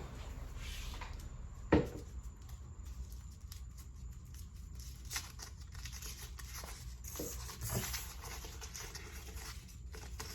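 Paper rustling and crinkling as a folded slip is handled and opened, with a single short knock about two seconds in.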